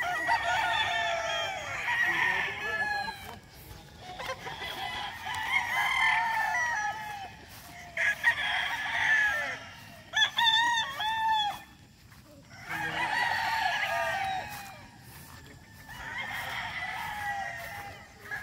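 Several gamecock roosters crowing one after another, a crow every few seconds, some calls overlapping.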